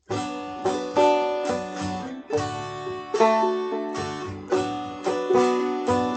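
Acoustic plucked-string instrumental intro to a folk song, starting right on the count-in with sharply picked, ringing notes and chords.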